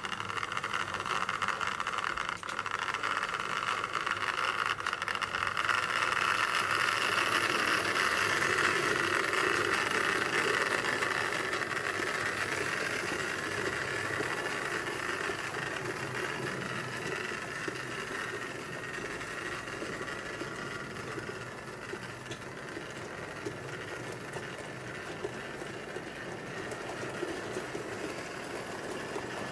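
Model train running along its track: a steady whirring of motor and wheels that grows louder over the first several seconds and then slowly fades as the train passes.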